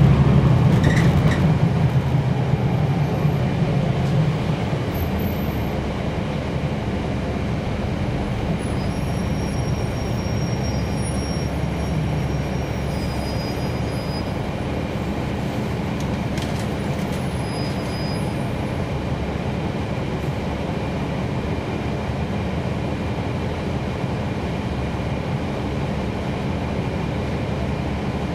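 Inside a NABI 40-foot transit bus, heard from the cabin: the Cummins ISL9 inline-six diesel pulls loudly at first and eases off over the first few seconds, then the bus settles into a steady, even drone of engine and running gear.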